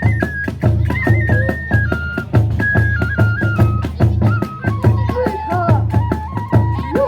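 Kagura hayashi: a bamboo transverse flute plays a held, stepwise melody over a quick, steady beat of taiko drums.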